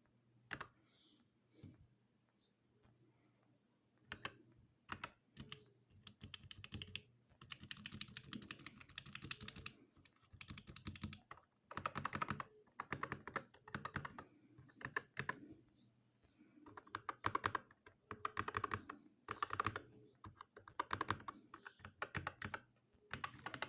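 Typing on a Dark Project Pro KD87A mechanical keyboard with stock Gateron Optical 2.0 Red linear switches and PBT keycaps. A few single keystrokes come first, then fast bursts of typing with short pauses between them.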